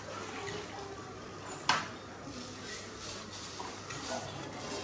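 Low background noise of a street-food stall with faint voices, and one sharp clack of a kitchen utensil about two seconds in.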